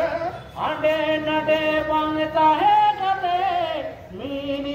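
A man singing a slow chant-like song into a microphone, holding long notes that waver, with one note sliding down in pitch near the end before the next begins.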